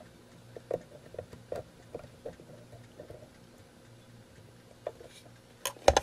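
Small screw being driven by hand with a screwdriver shaft, its threads biting into plastic: a run of faint, irregular ticks, then a few clicks and a sharper knock near the end.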